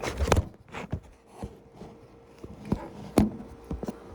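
Close-up mouth sounds of someone chewing a shrimp sub sandwich: scattered wet clicks and smacks, the loudest about three seconds in.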